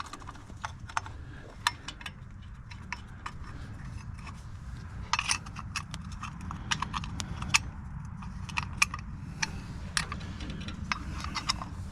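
Scattered light metallic clicks and clinks, some in quick clusters, from parts or tools being handled on the tractor, over a steady low rumble.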